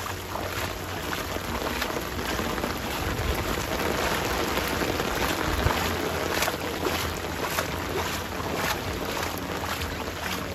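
Heavy rain falling in a steady hiss, with footsteps splashing through water on the flooded pavement.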